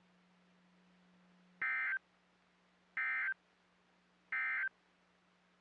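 Emergency Alert System end-of-message data tones on NOAA Weather Radio: three short, identical bursts of warbling digital data, about a second and a half apart, marking the end of the warning. A faint steady low hum runs underneath.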